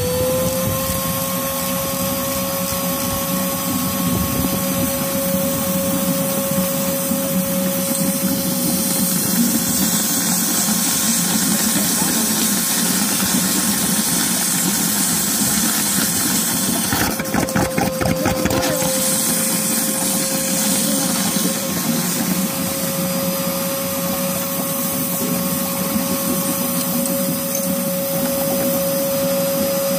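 Household vacuum cleaner running with a steady whine, its hose taped to the Cummins diesel's oil filler tube to hold the crankcase under suction while the oil drain plug is pulled. About two-thirds of the way in there is a short rattle of clicks and the motor's pitch dips briefly, then settles a little higher.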